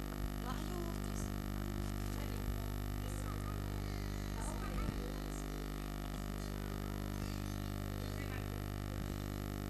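Steady electrical hum with many overtones from a microphone and sound system, with faint scattered small noises over it.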